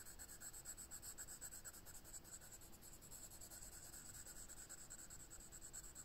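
Faint scratching of a coloured pencil on drawing paper, shading in light, quick strokes.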